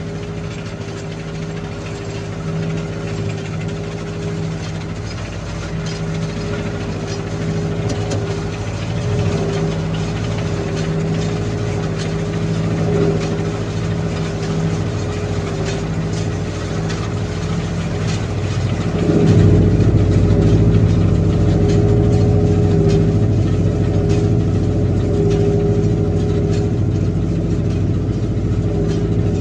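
Old tractor engine running steadily; about nineteen seconds in it gets louder and deeper and stays so.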